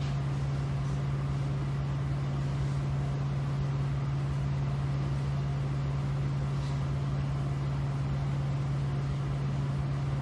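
A motor running steadily with a low, even hum, and a faint brief hiss about two thirds of the way through.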